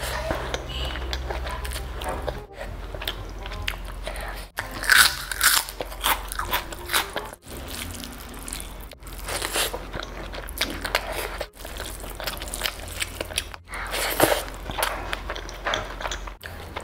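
Close-miked eating: a person chewing and biting mouthfuls of rice pilaf eaten by hand, with many crisp crunches and crackles. The sound breaks off in brief silent gaps about every two seconds.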